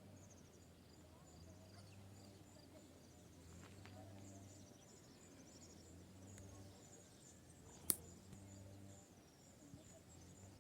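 Faint outdoor ambience of small creatures chirping: soft, repeated high-pitched chirps keep going over a low hum. A single sharp click stands out about eight seconds in.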